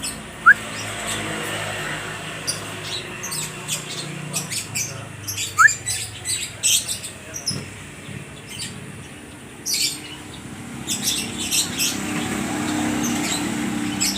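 Lovebirds chattering back and forth, with many short, shrill chirps in quick runs as the birds answer one another. Two brief rising whistles stand out, one about half a second in and one near six seconds, over a low steady hum.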